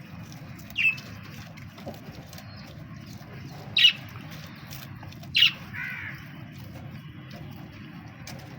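A bird giving three short, harsh calls, the last followed by a softer wavering call, over a steady low rumble.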